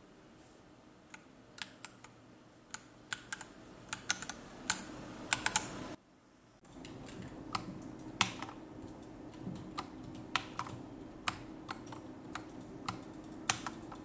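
Typing on a mechanical keyboard with SA-profile doubleshot PBT keycaps and Akko CS Matcha Green switches. Single keystrokes speed up into a quick flurry about five seconds in, break off briefly, then go on at an uneven pace.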